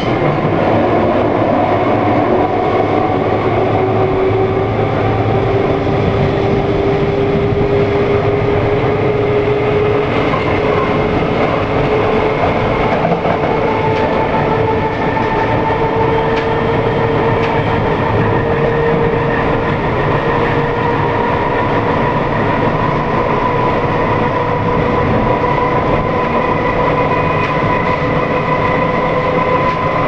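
London Underground D Stock train accelerating, heard inside the carriage: the traction motors whine with several tones slowly rising in pitch as speed builds, over the steady rumble of wheels on rails.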